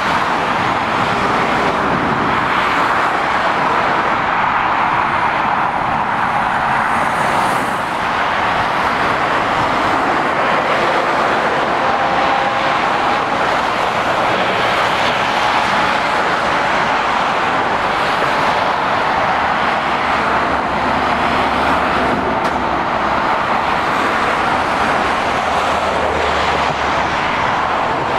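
Steady road traffic noise from lorries and cars passing on a dual carriageway: continuous tyre roar mixed with diesel engine noise.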